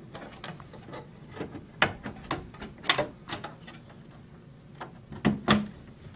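Graphics card being pushed down into a motherboard expansion slot in an open desktop computer case: scattered clicks and knocks of the card and its metal bracket against the slot and case. The loudest come about two and three seconds in, and twice in quick succession near the end.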